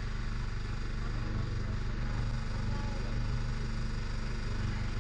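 Suzuki Samurai rock crawler's engine idling steadily while the vehicle sits stopped on the rocks.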